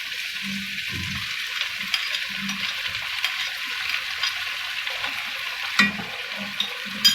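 Spiced potato curry sizzling in a frying pan as yogurt and green chilies are stirred in with a spoon, in soft repeated strokes. Two sharp clicks of the spoon against the pan come near the end.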